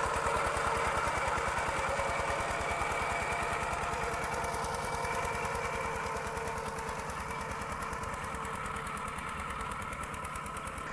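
Single-cylinder diesel engine of a Kubota RT120 walking tractor running steadily under load as it ploughs wet paddy soil, with an even, rapid pulsing beat. It grows gradually fainter as the tractor moves away.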